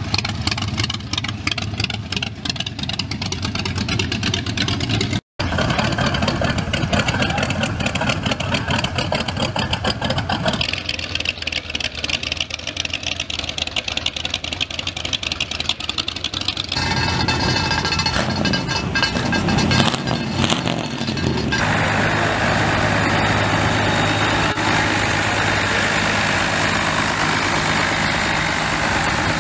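Rat rod truck engines running as the trucks roll slowly past, heard in a run of short clips cut one after another. The last clip, from about two-thirds of the way in, is a steady low engine note.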